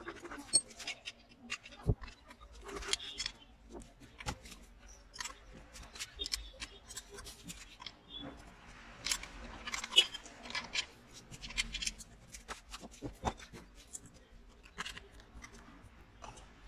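Irregular sharp clicks, taps and knocks of small engine parts and bolts being handled and set down while a Briggs & Stratton lawn mower engine is taken apart by hand.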